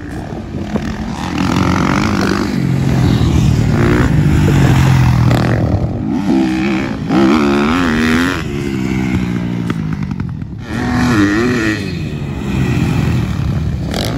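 Motocross bikes revving up and down on the track, the engine pitch rising and falling with the throttle, with sharper revs around the middle and again near the end.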